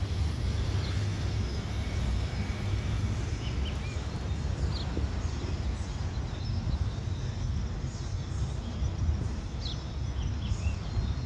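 A steady low rumble of outdoor noise, with a few short bird chirps scattered through it.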